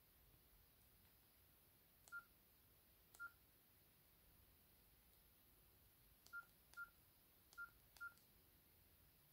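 Nokia 6700 Slide keypad tones as its navigation key is pressed: six short beeps of the same pitch, each with a faint key click. The first two come about a second apart, and four more follow in quick pairs near the end.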